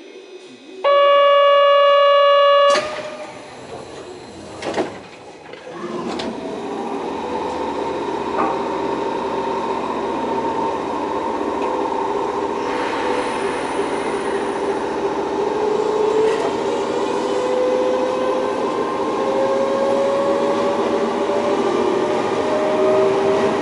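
A loud steady electronic tone sounds for about two seconds shortly after the start, and a knock follows a couple of seconds later. Then a Kobe Electric Railway 5000-series train starts pulling away: its Mitsubishi GTO inverter and traction motors whine, the pitch climbing slowly and the sound getting louder as it gathers speed.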